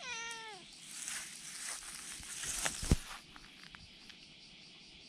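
A cat's single short meow that falls in pitch. Rustling follows, then one sharp thump about three seconds in, the loudest sound.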